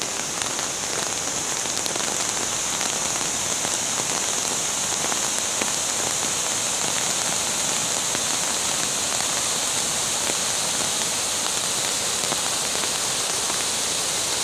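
Steady rain falling, an even hiss sprinkled with scattered ticks of drops landing close by.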